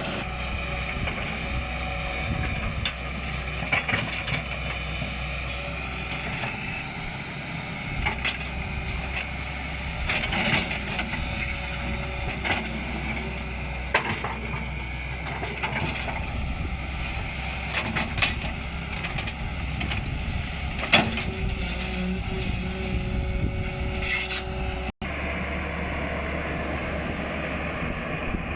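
SANY 210 excavator working hard: its diesel engine runs steadily under load, with scattered knocks and clanks.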